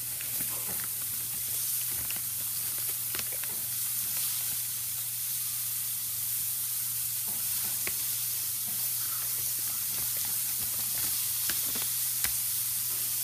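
Pancake batter sizzling steadily in a hot pan, with faint scattered ticks and a low steady hum underneath.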